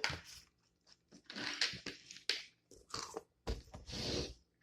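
Close-miked crunching and chewing of taco salad, a few crisp bites coming in short bursts, with a longer crunch near the end.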